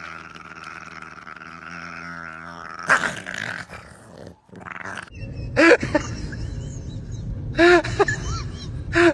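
A dog vocalising: a drawn-out sustained sound at first, then, after a short break, several short yelps that rise and fall in pitch over a low rumble, the loudest near the end.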